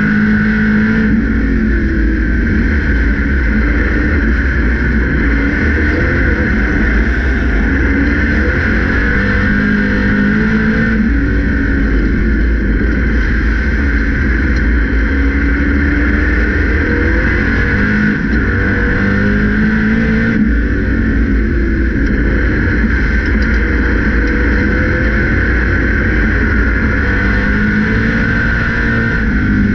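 Grand National stock car's race engine at racing speed, heard from inside the cockpit, loud and continuous, its pitch rising and falling again and again as the throttle is opened and closed around the track.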